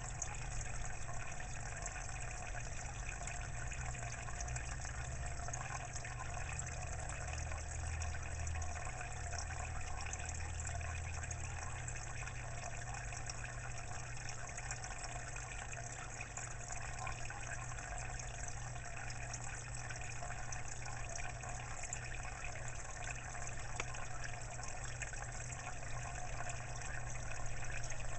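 Water in a marimo aquarium running and gushing steadily, with a low hum underneath.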